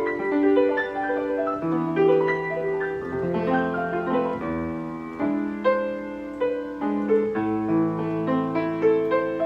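Steinway piano playing a flowing passage of notes, several sounding together, at a steady moderate level.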